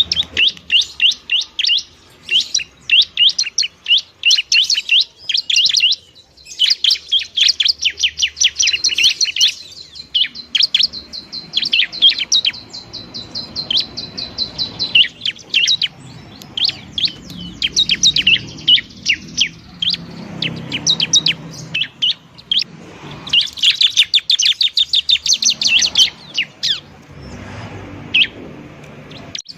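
Bar-winged prinia (ciblek) singing noisily: fast runs of high, quick chirps in bursts separated by short pauses, with one longer stretch of chirps over a held high note.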